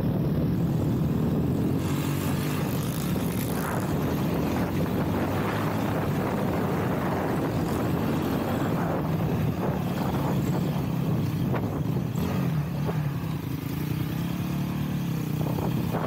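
Honda CRF-X dirt bike's single-cylinder four-stroke engine running under way, its pitch rising and falling with the throttle. A broad hiss joins about two seconds in.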